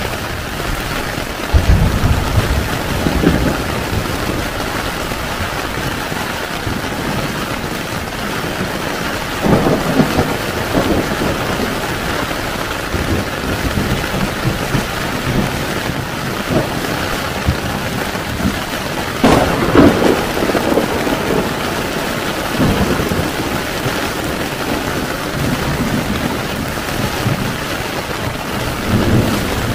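Heavy rain falling steadily on a tent, with several rolls of thunder. The loudest roll comes about two-thirds of the way through and opens with a sharp crack.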